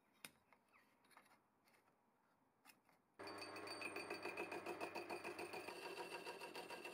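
A few faint clicks, then about three seconds in a metal lathe starts running: a faint, steady machine sound with a thin whine and a quick rhythmic pulse, as a cutter in the chuck notches the end of a steel tube fed in from the cross-slide.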